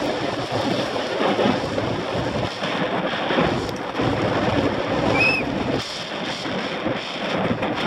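Wind rushing over a helmet-mounted camera and a downhill mountain bike's tyres running over dry dirt and loose rock at speed, with the bike rattling over bumps.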